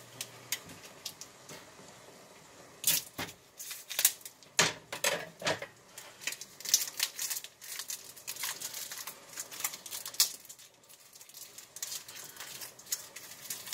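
Plastic wrapper on a block of cheddar cheese crinkling and tearing in short, irregular snaps and crackles as it is picked and pulled at. The wrapper is stubborn and will not open easily.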